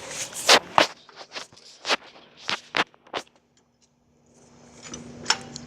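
A run of sharp clicks and knocks from hands-on work on a car's wheel and brake parts, about eight in the first three seconds, then a brief quiet and one more sharp click near the end over a faint steady hum.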